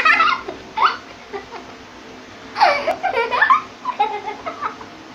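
Girls laughing hard in several bursts, with quieter pauses between.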